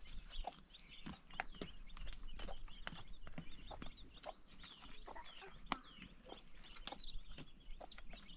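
Chickens clucking, with short high chirping calls scattered throughout, mixed with sharp clicks and knocks.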